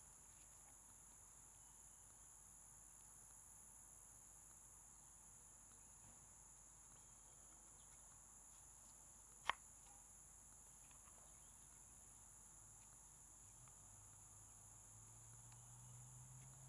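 Near silence: a faint, steady, high-pitched insect drone, with one sharp click about halfway through.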